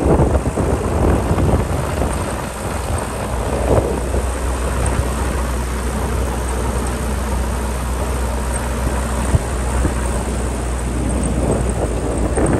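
Vehicle on the move along a road: a steady low drone from the engine and tyres, with uneven wind noise gusting against the microphone.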